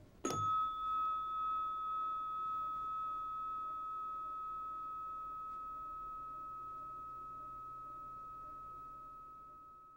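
The Zen Alarm Clock's tuned metal chime bar struck once, ringing with one clear tone that wavers slowly at first and fades away over about ten seconds.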